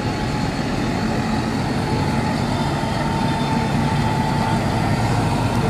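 Large modern Massey Ferguson tractor's diesel engine running as it drives slowly past close by, with a steady whine in the middle.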